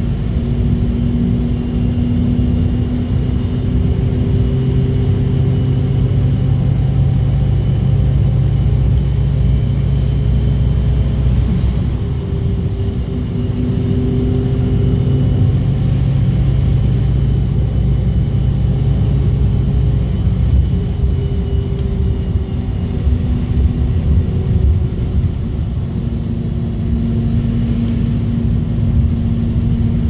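Inside an ADL Enviro200 MMC single-deck bus on the move: the engine and drivetrain run with a steady low rumble and road noise, and humming tones fade in and out several times.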